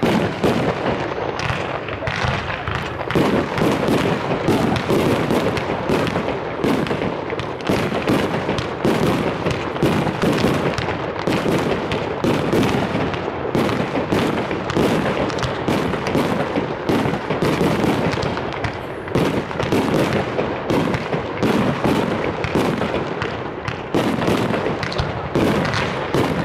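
Aerial fireworks display: a continuous barrage of shells launching and bursting, about two to three sharp bangs a second with no let-up.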